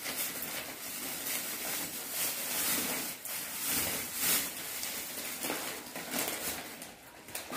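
Thin plastic bags and packets crinkling and rustling as they are handled and opened, in irregular crackles.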